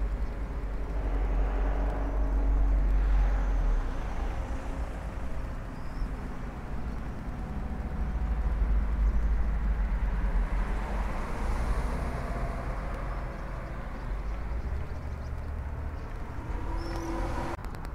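Road traffic: a low, steady rumble of cars on the road that swells and fades a few times as vehicles go by.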